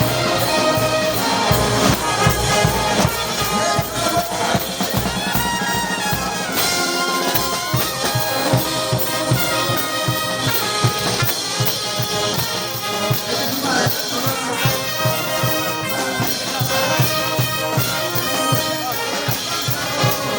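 Brass band playing a lively tune, trumpets to the fore over a steady beat.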